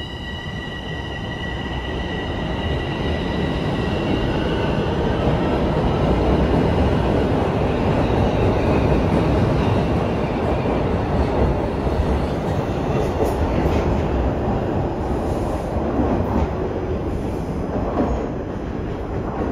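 Bombardier Toronto Rocket subway train pulling out of the station. A steady high whine fades over the first few seconds while the rumble of the train grows louder and keeps on. Near the end another Toronto Rocket comes in from the tunnel.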